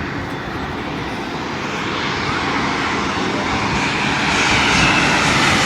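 Airbus A350-941's twin Rolls-Royce Trent XWB turbofans on landing approach: a steady jet roar growing louder, with a high fan whine coming in over the last couple of seconds.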